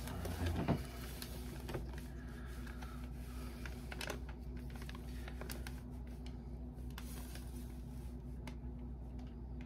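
Light clicks and taps from gloved hands handling a small plastic cup of paint and a stick, with a small thump about half a second in, over a steady low hum.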